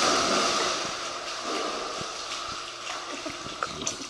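Pool water splashing and churning around a large dog that has just leapt in and is swimming. Loudest at the start, dying down over the few seconds.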